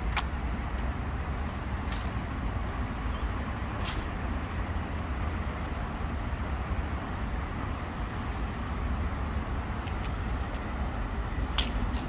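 Steady low rumble of city road traffic, with a few short, sharp ticks scattered through it.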